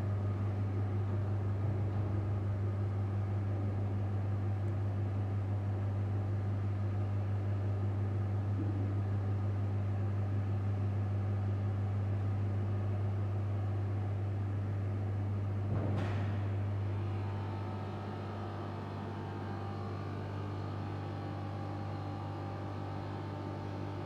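Steady low electrical hum from a 5-axis CNC bridge saw for stone, running with its blade not cutting. About 16 seconds in there is a single sharp click, after which the hum drops a little and changes tone.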